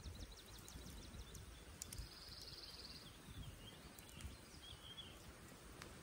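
Faint riverside ambience: a songbird gives a short, evenly pulsed trill about two seconds in, then a few chirps. A couple of sharp pops come from a small wood campfire, over a low rumble.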